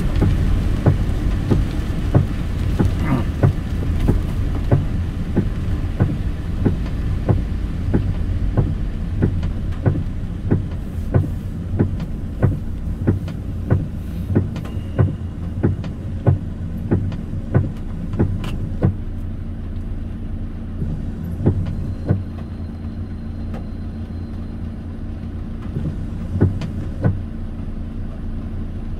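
Steady low rumble of a car heard from inside the cabin, with sharp regular ticks about every 0.6 s that stop about two-thirds of the way through, leaving only a few stray ticks.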